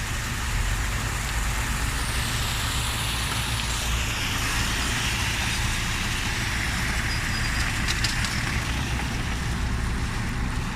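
Mercedes Arocs concrete mixer truck's diesel engine running steadily, with a steady hissing, crackling noise over it that swells midway.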